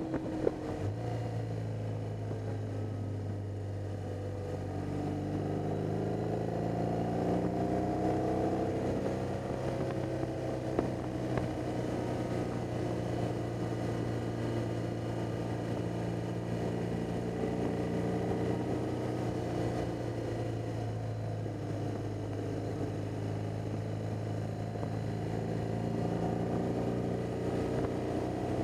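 BMW R 1200 GS flat-twin (boxer) engine running under way, its pitch rising as the bike accelerates a few seconds in, then holding fairly steady with small rises and dips. A couple of brief knocks stand out near the start and about ten seconds in.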